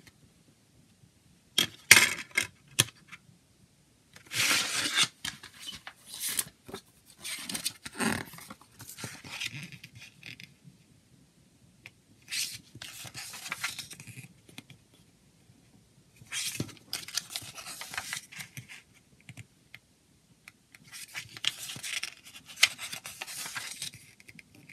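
Handling a CD jewel case and its paper booklet: a few sharp plastic clicks about two seconds in, then repeated bursts of paper rustling as the booklet's pages are turned.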